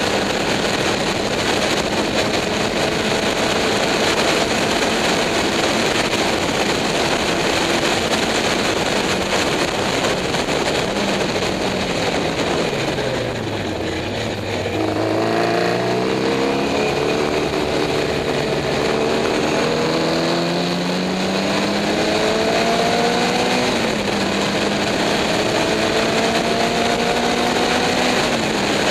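Race car engine heard onboard under heavy wind rush, running hard. About twelve seconds in the revs fall as it brakes and downshifts for a tight corner, then the pitch climbs again through the gears, with a quick drop at an upshift near the end.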